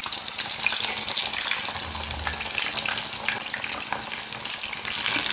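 Breaded chicken fillets deep-frying in very hot oil: a steady crackling sizzle full of small pops.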